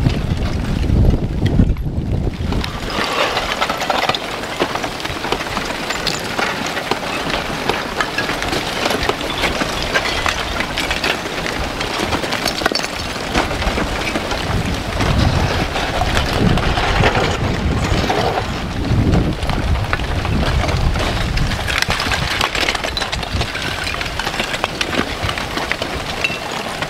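Blocky aa lava flow front advancing and crackling, with a dense run of clinks and small cracks as the cooled crust breaks and its blocks shift and tumble. Wind rumbles on the microphone for the first couple of seconds, before the crackling takes over.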